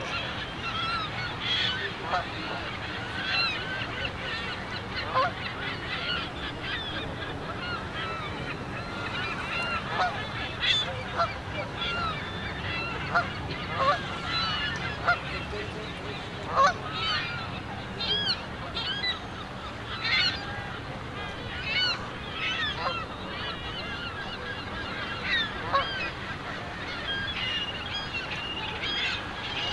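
A flock of Canada geese honking: many overlapping calls go on throughout, with some louder, nearer honks standing out here and there.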